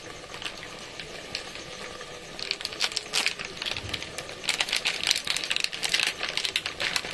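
Chicken and spice masala frying in the cooking pot, crackling and spluttering with irregular sharp pops over a sizzle. The crackling grows busier after the first couple of seconds.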